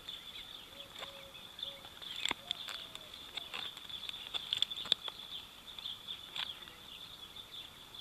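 A steady high-pitched insect trill, with scattered light clicks and rustles of small items being handled and a plastic card slipped into a fabric belt pouch.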